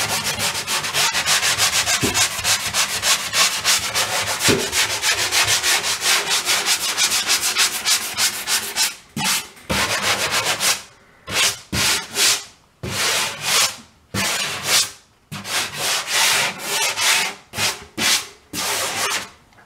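Hand sanding block rubbed back and forth over dried drywall joint compound on a ceiling patch, lightly knocking down the rough areas of the first coat. Fast continuous strokes for about nine seconds, then separate strokes with short pauses between them.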